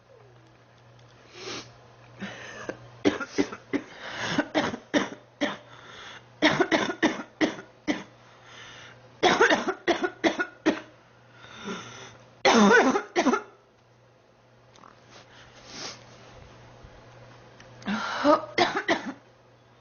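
A sick young woman coughing in repeated fits, each a run of several quick coughs, with short pauses between fits and a longer quiet gap before a last fit near the end.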